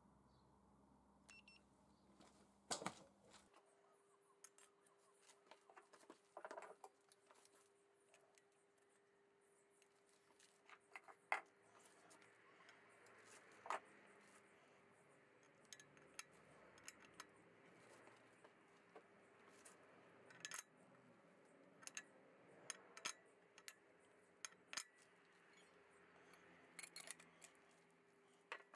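Scattered small metallic clicks and clinks of a main bearing and its spring clip being handled and fitted into an aluminium motorcycle crankcase, over a faint steady hum that sets in a few seconds in.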